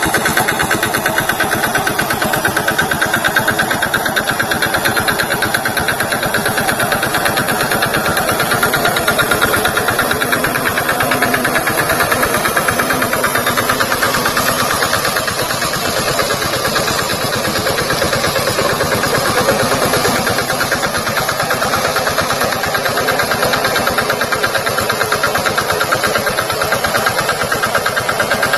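VST Shakti tractor's diesel engine running steadily, with an even, rapid firing beat.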